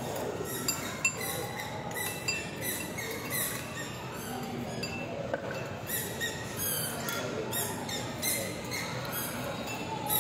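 Eating-place background: a steady din with frequent light clinks and taps of glassware and cutlery.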